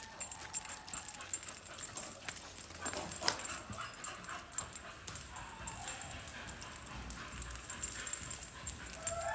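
A dog whimpering softly now and then, with a few metallic clinks from a chain leash.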